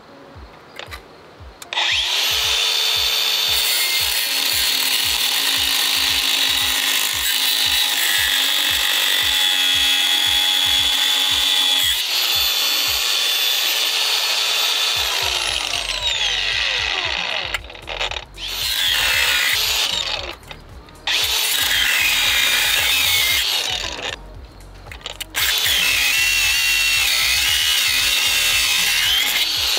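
A power tool fitted with a cutoff wheel cutting through a steel tie rod end whose stud just turns and can't be unbolted. It starts about two seconds in with a high whine that rises and falls as the wheel bites, and stops briefly several times near the middle and later on.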